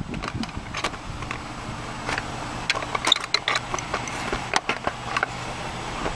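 Scattered, irregular clicks and light metallic knocks of a socket wrench working the 10 mm bolts on a car's engine cover, over a faint steady hum.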